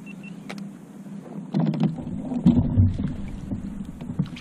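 Irregular knocks and thumps on a plastic kayak's hull, starting about one and a half seconds in.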